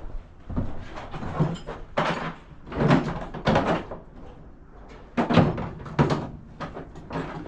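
Hand tools clanking and rattling: a socket set being handled, metal sockets and ratchet knocking together in a series of irregular knocks.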